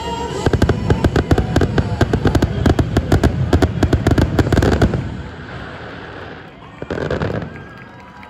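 Fireworks closing barrage: a rapid, dense volley of bangs and crackles for about five seconds, then fading away, with one more short burst near the end.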